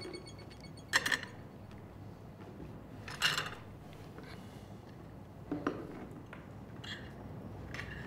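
Cutlery clinking against plates and glasses at a meal: about five scattered, sharp clinks, the loudest about a second in and another about three seconds in.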